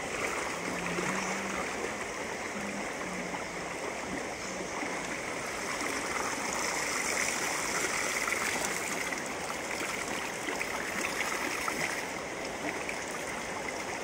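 Shallow stream water flowing steadily, with water pouring and splashing out of a cement pipe trap as it is lifted from the stream, a little louder for a few seconds midway.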